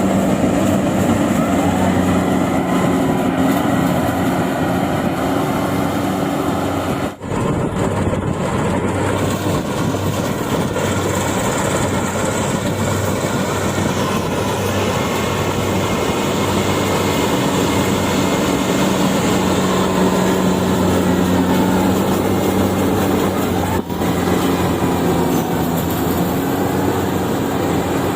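Yanmar AW70V combine harvester running under load: a steady engine drone beneath the dense mechanical noise of its working machinery, with two brief dips in level.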